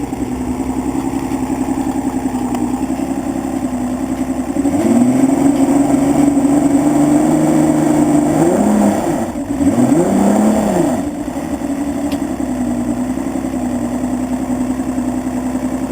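Evinrude 200 two-stroke outboard engine idling, throttled up about five seconds in, revved up and down twice, then settling back to a steady idle. It runs normally once started; the fault is that it will only restart with fuel poured into the cylinder.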